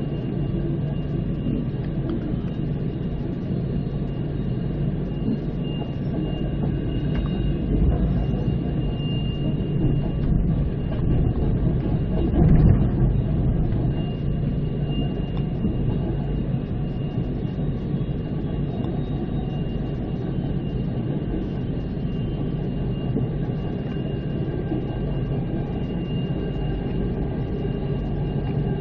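Steady rumble of the Spirit of the Outback passenger train running slowly along the track, heard from inside the carriage, with a faint steady high whine above it. The rumble swells briefly about twelve seconds in.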